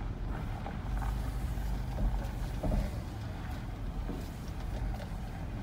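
Steady low rumble of a car running, heard from inside the cabin while it rolls slowly, with a few faint ticks and knocks.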